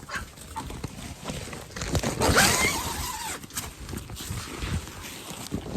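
Footsteps crunching and scuffing through snow, an uneven run of crunches with a louder scuffle about two seconds in.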